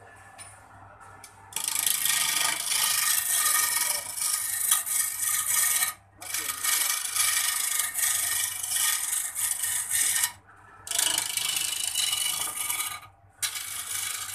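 Hand chisel cutting into an old sal-wood workpiece spinning on a belt-driven wood lathe: a loud scraping noise in four long passes with brief pauses between them, the first beginning after about a second and a half. The lathe's electric motor hums steadily underneath.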